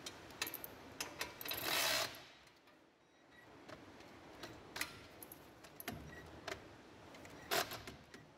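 Light clicks and clinks as a cordless power tool and metal parts are handled at a car's front wheel hub. A brief burst of noise comes about one and a half seconds in, and another short one near the end.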